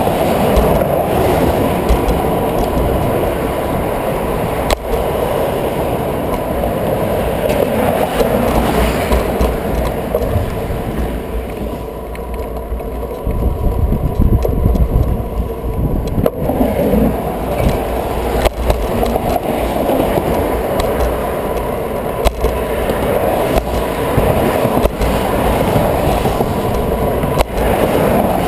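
Steady rumble of wind and tyre noise from a bicycle rolling over a wet bridge sidewalk, picked up by a handlebar-mounted camera, with traffic running alongside. A few sharp knocks as the bike goes over bumps.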